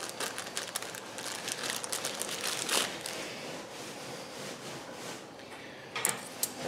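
Clear plastic parts bag crinkling as gloved hands open it and handle the small parts inside, with scattered light clicks and a few sharper clicks about six seconds in.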